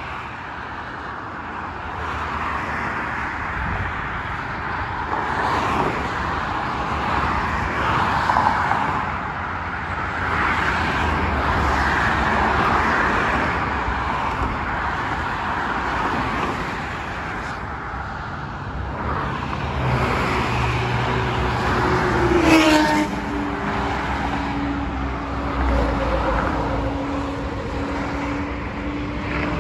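Continuous motorway traffic heard from an overpass, swelling and fading as cars pass beneath. About two-thirds of the way in, a passing vehicle's whine drops sharply in pitch and settles into a steady hum.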